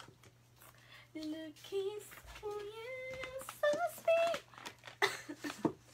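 A voice singing a few held notes of a short tune without words, stepping up and down in pitch, then a few short knocks near the end.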